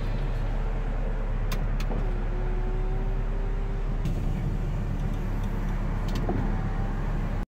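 Power window motor of a 2004 Mini Cooper whining as the door glass moves, in runs of about two seconds that start and stop with small shifts in pitch, over a steady low hum from the car.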